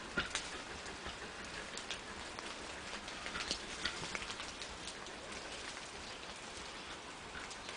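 Water dripping and pattering: many small, irregular drips over a soft steady hiss.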